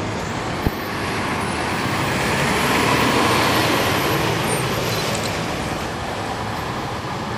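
Inside a NABI 40-SFW transit bus near the rear: its Cummins ISL9 diesel engine running with road noise as the bus moves. The sound swells to a peak about three seconds in and then eases off, with a single sharp click just under a second in.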